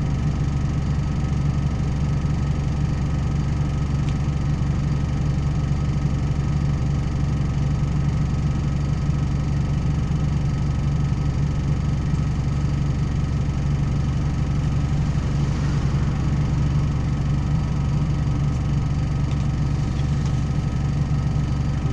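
Truck engine idling steadily, heard from inside the cab while the truck stands at a red light.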